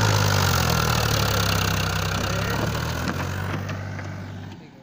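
Powertrac tractor's diesel engine running steadily at low revs, then fading out near the end.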